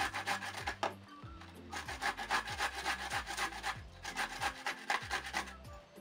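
A pickled cucumber being grated on a hand-held grater into a bowl: quick rasping strokes, about seven a second, in three runs, with short pauses about a second in and about four seconds in.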